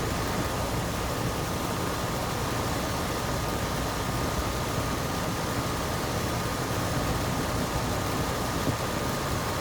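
Gibson air conditioner running steadily: an even whoosh of fan and compressor noise with a low hum underneath and a thin, steady high whine.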